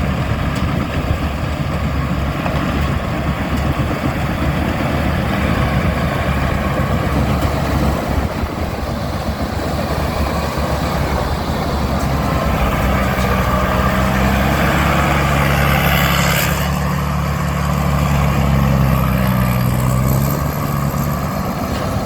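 Engine of a Tamco rice combine harvester running steadily as the machine works. About halfway through, its hum grows clearer and shifts slightly in pitch.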